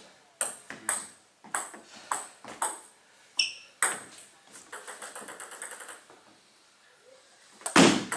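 Celluloid-type table tennis ball clicking off bat and table in a string of evenly spaced sharp ticks, about two a second, then a quick patter of small ticks. Near the end comes a loud knock as play resumes.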